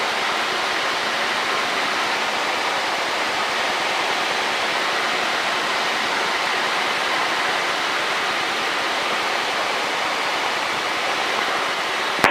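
Steady cabin noise of a Cessna 152 in flight: the engine, propeller and slipstream blending into one even drone.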